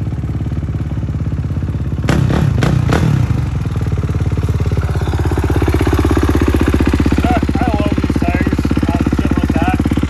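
2019 Kawasaki KX450 dirt bike's single-cylinder four-stroke engine running, with a few sharp blips about two seconds in, then settling into a steady, evenly pulsing idle.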